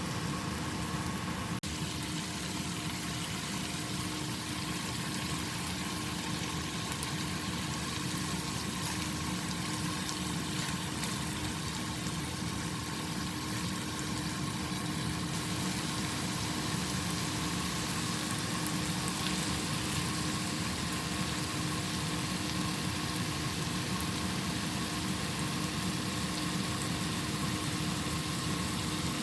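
Steady mechanical hum with an even hiss and a few faint steady tones, unchanging.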